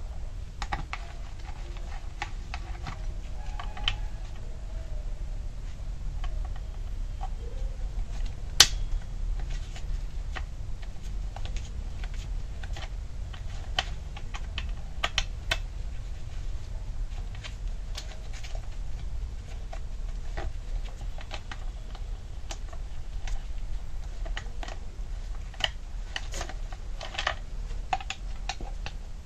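Irregular light clicks and taps of a metal hex key and screws against the plastic starter cover of a Keil KL6050 gasoline chainsaw as the cover's four screws are undone, with one sharper click about eight and a half seconds in. A low steady hum runs underneath.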